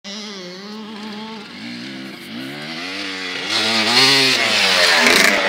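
Dirt bike engine revving, its pitch rising and falling, growing louder from about three and a half seconds in as the bike comes close.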